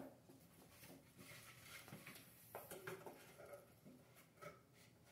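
Faint scratching and rustling of a cat moving about inside a cardboard box: a scatter of small soft scrapes and clicks.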